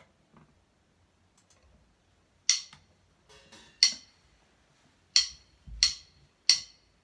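Count-in before a drum piece: five sharp wooden clicks, two slow ones followed by three quicker ones at an even pulse.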